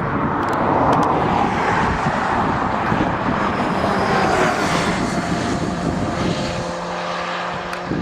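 Aircraft engine drone as an airplane flies over. It swells in the first second, then slowly eases off, with steady engine tones showing in the second half.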